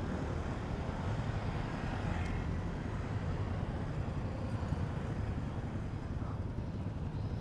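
Steady low rumble of street traffic, mostly motorbikes, passing through a junction.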